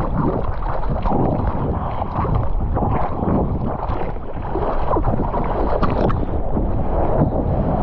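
Sea water sloshing and splashing close to the microphone, with wind buffeting it.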